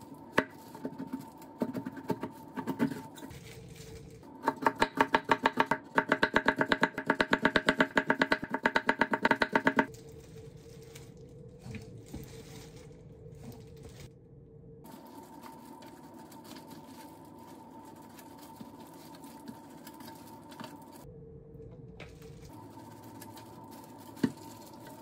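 Kitchen knife slicing a bitter melon (goya) thinly on a wooden cutting board: a few separate cuts, then from about four seconds in a fast, even run of knife strokes on the board that stops about ten seconds in. After that only quiet handling of the slices, with a single click near the end.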